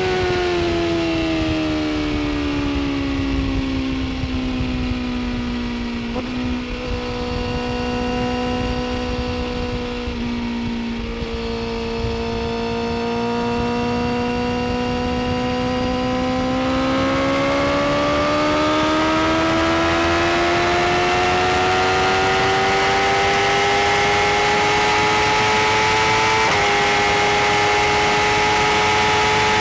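BMW S1000RR's inline-four engine heard from the rider's seat, with rushing wind. The engine note falls over the first several seconds as the bike slows, holds low and steady, then climbs steadily as it accelerates again, with a few sudden small steps in pitch along the way.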